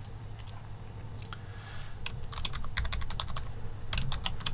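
Keystrokes on a computer keyboard: a few scattered key presses, then a quick run of typing from about halfway through.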